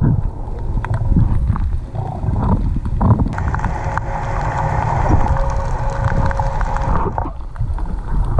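Underwater rumble and water noise with scattered clicks, and a steady mid-pitched tone that holds for about three seconds in the middle.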